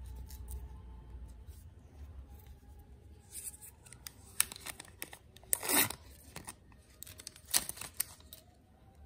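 Clear protective plastic film being peeled off a laptop power adapter: scattered crackles and clicks, with two louder rips about two seconds apart in the second half.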